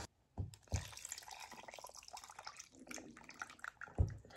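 Spicy tonkotsu ramen broth being poured over noodles in a bowl: a faint trickling and dripping of liquid. A few light knocks come through it, the loudest near the end.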